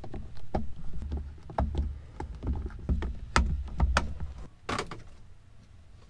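Plastic lower steering-column trim of a 1992 Ford F-150 being unscrewed and worked loose by hand: irregular clicks and knocks over a low handling rumble, with a few sharper snaps a little past the middle. It grows quieter near the end.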